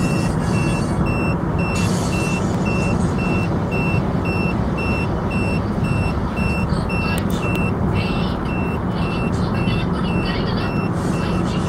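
In-vehicle speed limit alarm beeping steadily, about two high beeps a second, the warning that the vehicle is over the set speed. Under it, the vehicle's engine and tyre noise drone steadily.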